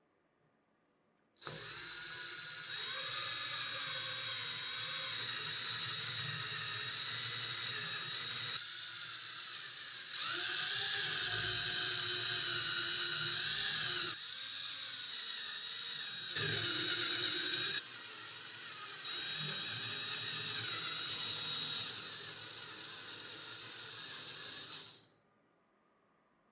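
Electric angle grinder running at speed with a steady high-pitched whine. Its level and tone shift abruptly several times, and it stops about a second before the end.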